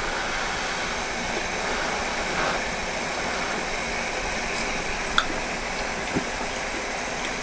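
Steady hiss of pans simmering and boiling on a kitchen hob: a red-wine sauce reducing and vegetables boiling. There are a couple of faint light ticks.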